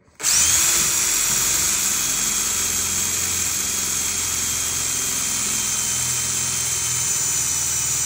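Handheld power drill starting up and running at a steady speed with a high motor whine, a twist bit drilling through a hand-held aluminum bracket.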